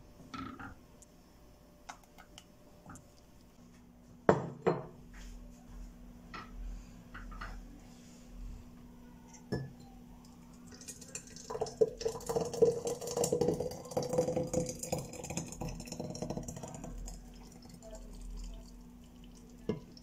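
Metal clinks of a stainless steel pot, the loudest about four seconds in. Then thick red sauce pours from the pot into a glass jar, a dense splashing glug for several seconds that tapers off near the end.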